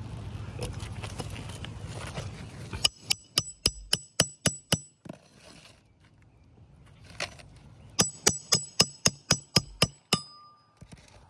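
Hammer driving roofing nails into an asphalt shingle: a quick run of about eight ringing strikes, two single blows, then another run of about nine. A low rumble fills the first few seconds before the hammering.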